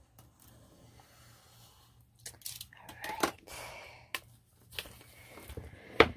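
Clear plastic shrink wrap being cut open and pulled off a boxed set, crinkling and tearing in irregular bursts with a few sharp crackles. The sharpest crackle comes near the end.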